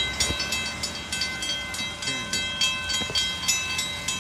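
Railroad crossing warning bell ringing in a steady rapid rhythm, about three strikes a second, while the flashing lights are on and the gates lower: the crossing is activated for an approaching train.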